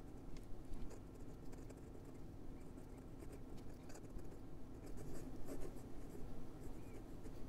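Faint sound of a Hongdian N8 fountain pen's fine steel nib moving across notebook paper as handwriting is written, a nib with a good deal of feedback, with small scratches and ticks from the strokes.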